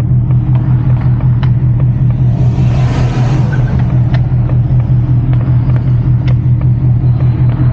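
Car engine and exhaust running with a steady deep drone, heard from inside the cabin while the car rolls at low speed. A brief rush of hiss swells and fades about three seconds in.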